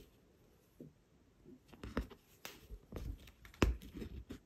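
Needle and wool yarn being pushed and drawn through linen stretched in an embroidery hoop: scratchy rustling with several sharp clicks, the loudest two about two and a half and three and a half seconds in.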